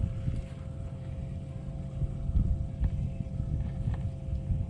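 Wind buffeting the microphone in uneven low rumbles over a faint, steady two-note hum.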